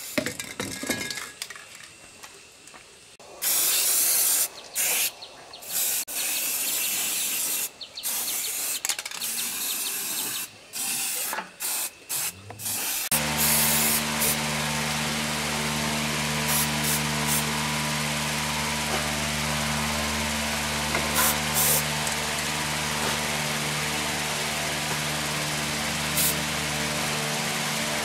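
Hissing spray in repeated on-off bursts, then a steady machine hum sets in about halfway through and runs on under a hiss.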